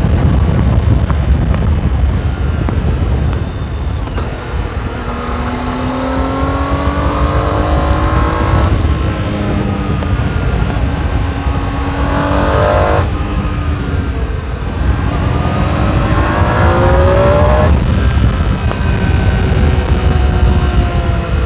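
Triumph Tiger 800 XRx's 800 cc inline-three engine on its stock exhaust, pulling hard on the road: its note climbs and breaks off abruptly three times at the gear changes, then holds and falls slowly. Heavy wind noise on a helmet-mounted microphone runs underneath.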